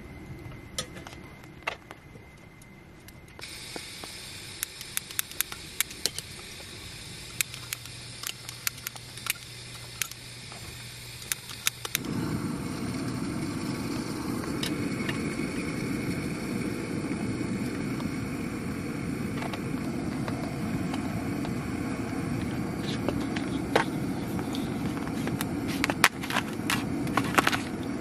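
Portable gas camping stove burner lit about twelve seconds in, then burning with a steady rushing hiss under a mess tin. Before it lights, only scattered light ticks; a few sharper clicks sound near the end.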